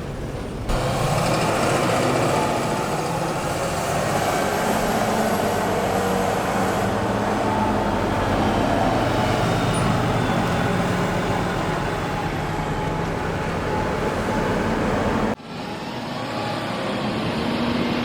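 Heavy farm machinery running steadily with a deep engine note under mechanical noise: large tractors and the forage harvester at work in a maize silage harvest. The sound changes abruptly twice, about a second in and near the end.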